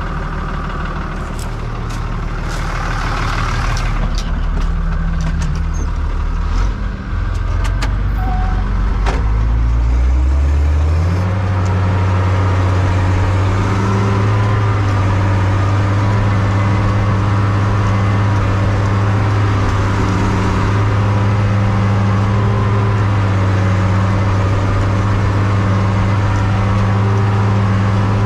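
Fiatagri 100-90 tractor's diesel engine running low with a few sharp clicks, then revving up about ten seconds in and holding steady at high revs while it drives the Vaschieri L140 manure spreader.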